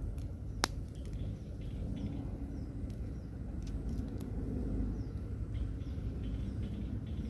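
Outdoor ambience: a steady low rumble with faint bird chirps and one sharp click just under a second in.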